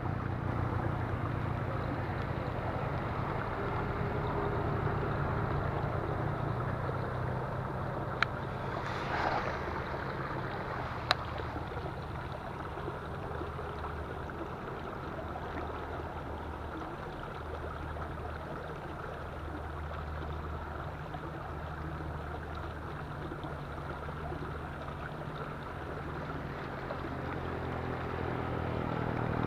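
An engine running steadily, its low hum pulsing slowly under a constant rushing noise, with two sharp clicks about eight and eleven seconds in.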